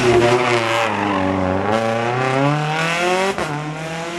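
Rally car engine running hard: the revs fall, then climb again about halfway through, with a short break near the end before the note settles lower.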